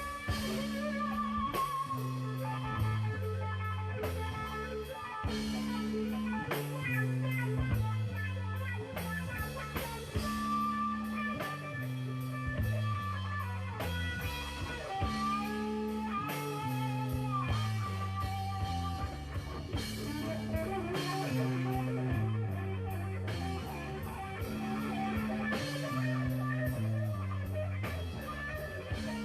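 Background rock-blues music with electric guitar, bass and drum kit, a repeating bass riff under bending guitar lead lines.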